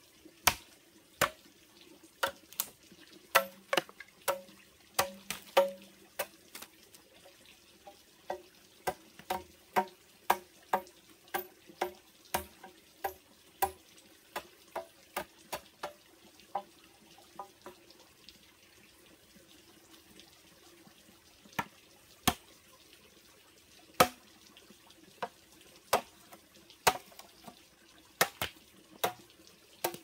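Machete chopping at a bamboo pole, cutting a point onto a stake: a string of sharp strikes, quick and regular for the first half, then a short pause and sparser blows. A faint steady hum runs underneath.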